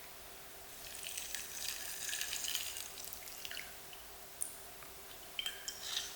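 Faint water splashing and dripping at a kitchen sink, uneven and patchy, strongest in the first half.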